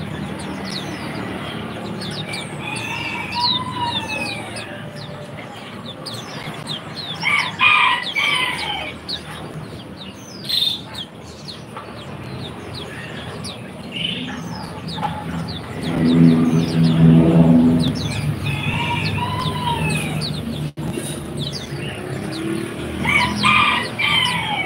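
Many caged birds chirping and calling together in quick short notes, with louder repeated calls about a third of the way in and again near the end.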